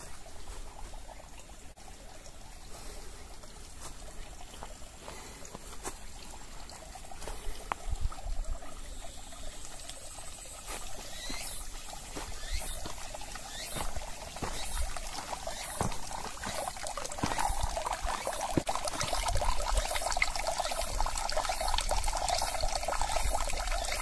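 Spring water trickling from a pipe spout into a concrete basin, splashing steadily and growing louder over the second half.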